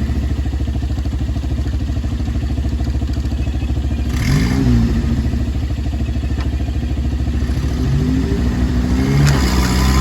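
Toyota 4x4 pickup's engine running hard under load, its revs rising and falling about four seconds in and again near the end, as the truck stuck in a canal is driven to try to climb out.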